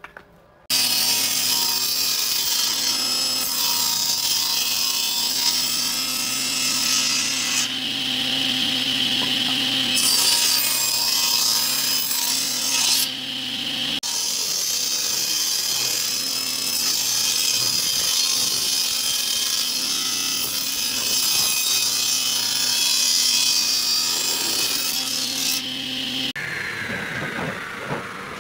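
Table saw ripping wooden boards: the blade runs steadily under load with loud cutting noise. Near the end the cutting stops and a whine falls steadily in pitch as the blade winds down.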